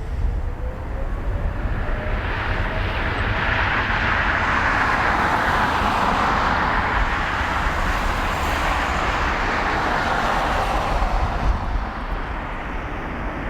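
Boeing 777F's twin GE90 jet engines at takeoff thrust: a broad roar with deep rumble that swells over several seconds and eases off near the end.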